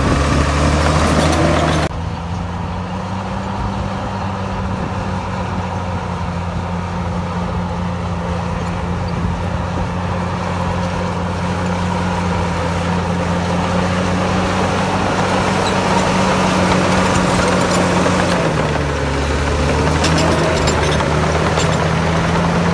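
Heavy diesel engine of earthmoving machinery running steadily. Its pitch sags and then recovers a little before the end. The level drops abruptly about two seconds in.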